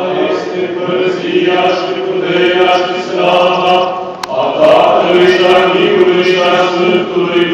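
Eastern Orthodox liturgical chanting in Romanian, sung in long held notes.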